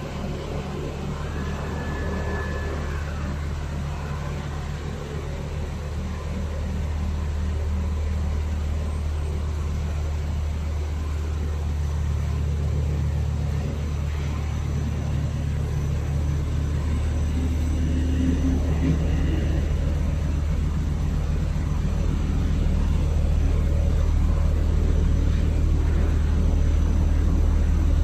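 Steady low hum and drone of cable-making machinery running in a factory hall, growing gradually louder.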